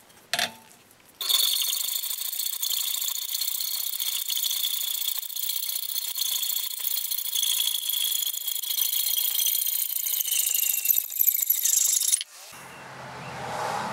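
Hacksaw cutting through a steel car lug wrench clamped in a vise: a steady, high-pitched rasp of the blade on the metal with a squeal, starting about a second in and stopping abruptly near the end.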